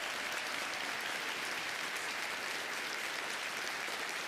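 Steady applause from many clapping hands.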